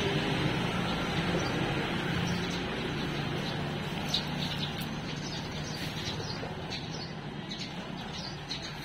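Steady background hum and hiss, with faint short high chirps from about four seconds in.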